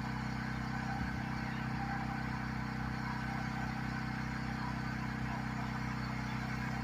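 A steady low motor hum made of several even low tones, unchanging throughout.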